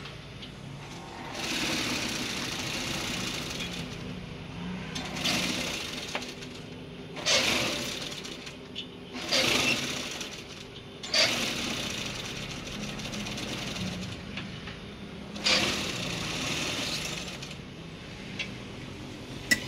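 Industrial tape-edge sewing machine stitching binding tape onto a mattress edge. It runs in short spurts, stopping and starting about six times as the mattress is fed through.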